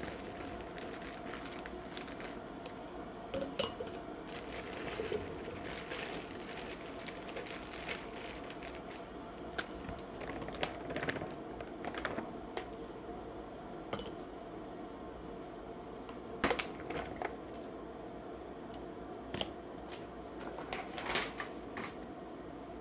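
Frozen cranberries and frozen pineapple chunks poured through a plastic canning funnel into glass mason jars: scattered, irregular clicks and rattles of hard frozen fruit against plastic and glass, over a steady faint hum. The fruit is being raw-packed into jars for canned juice.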